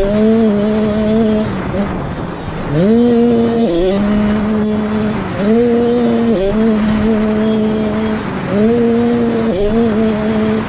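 Gas Gas MC 85 two-stroke motocross engine being ridden hard in bursts of throttle, about every three seconds. Each burst climbs quickly in pitch, dips briefly as it shifts up a gear and climbs again, then holds a high steady note before the throttle closes.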